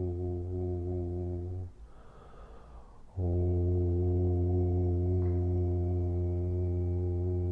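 A low, steady, held vocal 'O' tone, toned as sound practice. It breaks off just under two seconds in for an audible in-breath, then resumes at the same pitch.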